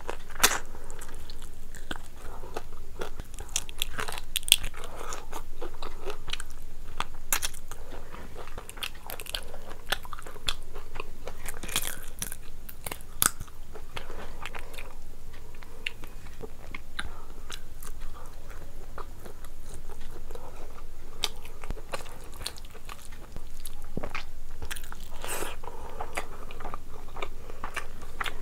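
A person chewing and biting food, with frequent sharp crunches and clicks, while eating rice and curry by hand.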